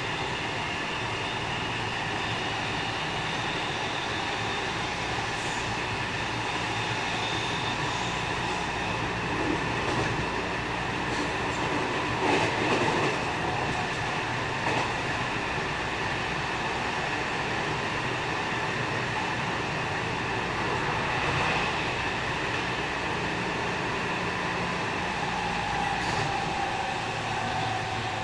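Onboard running noise of a JR West 207 series 1000-subseries electric train with a Toshiba GTO-thyristor VVVF inverter: steady wheel-on-rail rumble with the inverter and traction motors' whine. A brief louder clatter comes about twelve seconds in, and near the end a tone glides down in pitch.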